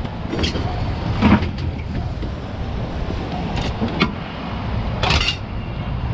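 Steady low vehicle engine and road rumble, with several short knocks or hisses scattered through it.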